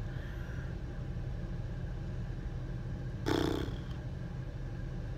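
Steady low hum of a van's engine idling, heard inside the cabin. About three seconds in, a short, louder sigh.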